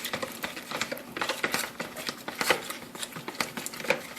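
A spoon stirring a wet mixture of clear glue, paint and food coloring in a bowl: irregular clicks and scrapes against the bowl, several a second.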